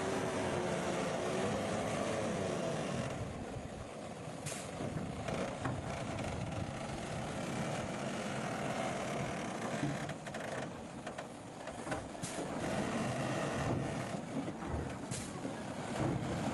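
Heavy road-construction machinery and trucks running, with engines droning steadily and a few sharp knocks or clanks.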